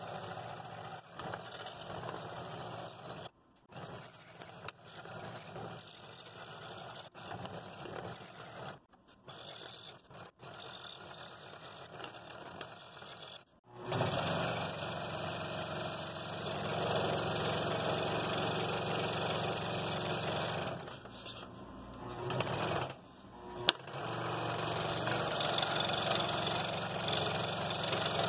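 Scroll saw running, its blade cutting small interior cutouts in a 3/4-inch wooden block. Louder from about halfway, with a few brief dropouts and one sharp click near the end.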